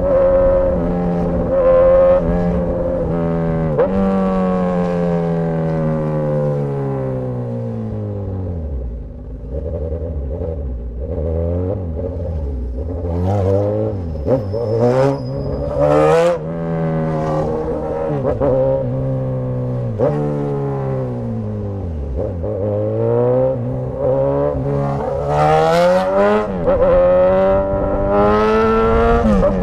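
Suzuki GSX-S1000's inline-four engine through a straight-piped exhaust, revving up and rolling off repeatedly: the pitch falls to a low rumble about a third of the way in, climbs and falls again, then rises near the end. A few short sharp cracks come through in the middle and shortly before the end.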